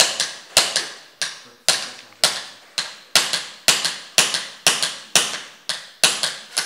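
Small steel hammer striking a pin punch to drive a pin out of a Walther PPQ M2 pistol part held on a wooden block: sharp metallic taps about two a second, each ringing briefly.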